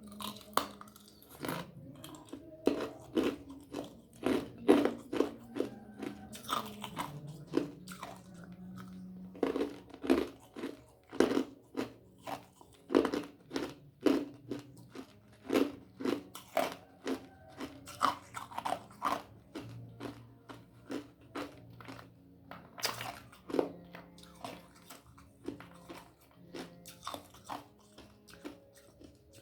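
Ice being crunched between the teeth: a long run of sharp, irregular crunches, roughly one or two a second, with short pauses between runs.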